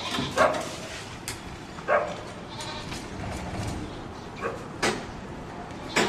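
Goats bleating a few times, with sharp knocks from a blade chopping goat meat on a wooden log block.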